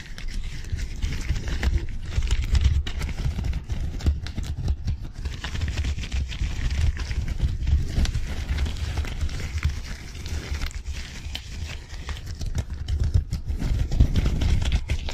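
Disposable gloves rubbed and flicked fast and close to the microphone: gloved fingers and palms crinkling, crackling and tapping in quick succession, over a low rumble.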